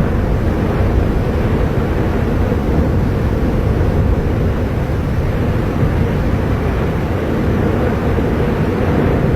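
Volcanic eruption giving off a steady, deep rumble of noise that holds level without a break.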